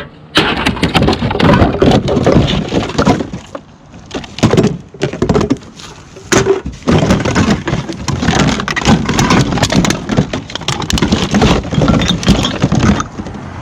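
Continuous clattering, knocking and crinkling from objects being rummaged through and handled, with sharp cracks throughout and a quieter lull about four seconds in.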